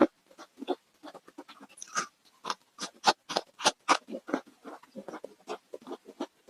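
Close-miked crunching and chewing of crispy fried food: quick, irregular crackling bites, several a second, loudest in the middle.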